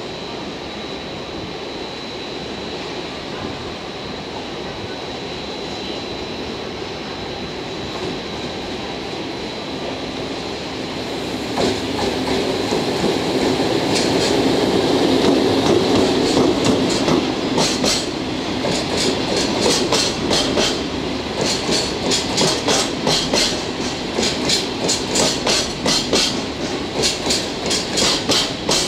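EF65 electric locomotive approaching and passing close by, loudest as it goes past about halfway through. It is followed by its train of flat wagons loaded with long rails, their wheels clicking over the rail joints in a steady clickety-clack rhythm.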